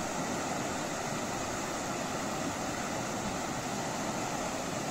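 Shallow river water rushing steadily over a row of boulders, an even rush of running water that does not change.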